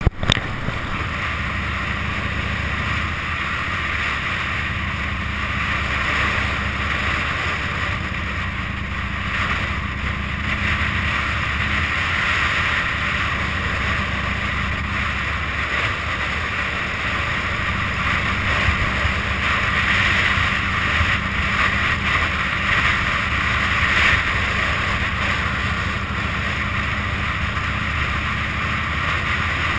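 Cruiser motorcycle running at a steady cruising speed, its engine a low steady rumble under loud wind rushing over the microphone.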